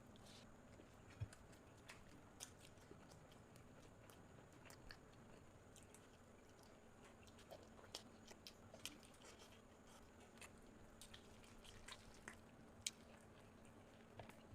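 Faint sounds of a person eating: chewing with scattered small mouth clicks and smacks over a faint steady hum. A sharper click comes about a second in and another near the end.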